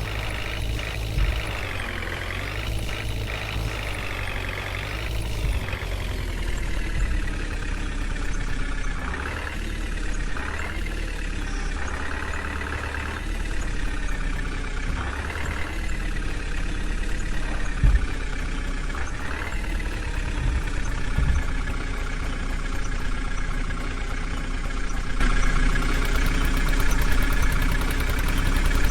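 Heavy diesel engine of working machinery running under load, its speed rising and falling again and again and picking up near the end.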